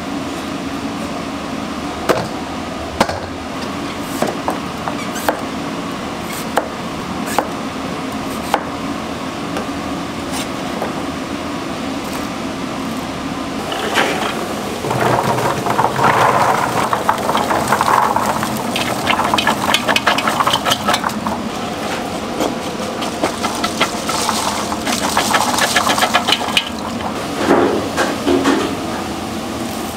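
Kitchen work over a steady hum: sharp knocks about once a second for the first several seconds, then a stretch of rustling and clattering from about halfway through until near the end.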